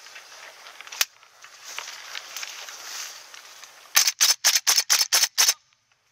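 Gas blowback airsoft M14 rifle firing seven quick shots in about a second and a half, each a sharp crack. A single sharp click comes about a second in.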